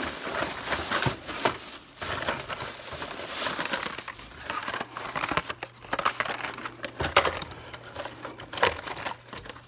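A thin plastic bag crinkling and rustling as a hand rummages inside it, with irregular sharper crackles.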